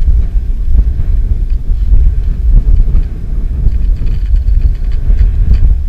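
Wind buffeting the camera microphone: a loud, unsteady low rumble that rises and falls.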